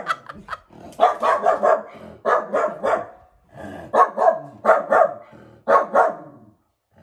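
Small white dog barking repeatedly in quick bursts at a window, alerting at a person walking past outside.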